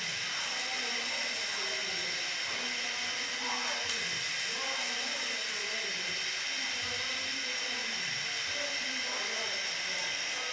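Steady sizzling hiss of a buttered sandwich toasting in a hot frying pan.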